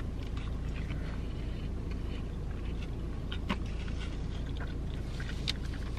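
Steady low hum inside a stationary car, with faint chewing and a couple of small clicks.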